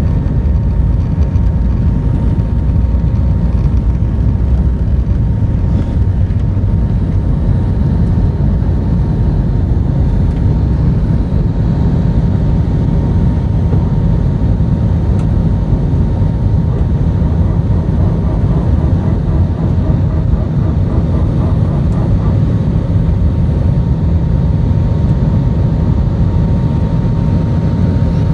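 Airbus A319 jet engines heard from inside the passenger cabin: a steady low rumble with a thin, steady whine above it.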